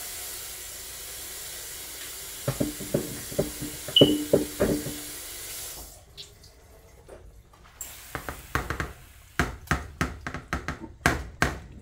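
Pot of water with rice boiling on an electric stove, a steady hiss with a few knocks, which cuts off suddenly about six seconds in. Then a run of sharp knocks as a plastic colander is tapped against the pot to knock the last rice grains in.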